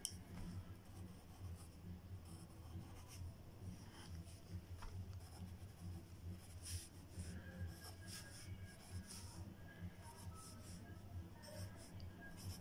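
Graphite pencil scratching on paper in short, irregular strokes, drawing small details, faint over a low steady hum.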